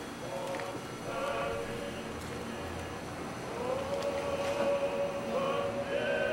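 A choir singing slow, long-held notes, swelling louder about halfway through.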